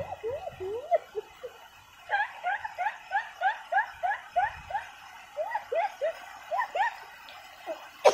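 An animal calling: a long series of short rising notes, about three a second, with a brief break about halfway through.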